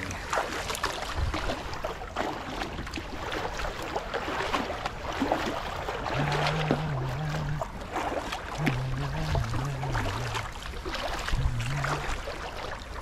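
Kayak paddle blades dipping and splashing in calm sea water, with water lapping at the hull of a sit-on-top fishing kayak. A low, wavering hum comes and goes in the second half.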